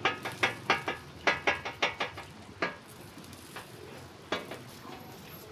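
Metal spatula edge tapping on a hot flat-top griddle as raw burger patties are scored with it, a quick run of sharp clicks about five a second, over a faint sizzle. After about two and a half seconds the tapping thins to a couple of single clicks.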